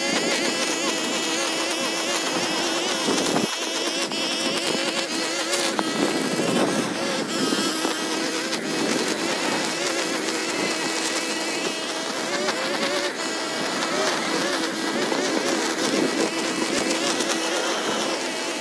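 Small gas engine of lawn-care equipment running steadily under load at a constant pitch.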